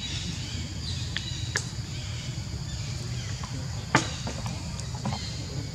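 A few sharp crackles of dry leaf litter as young macaques move about on it, the loudest about four seconds in, over a steady low rumble and faint high chirping.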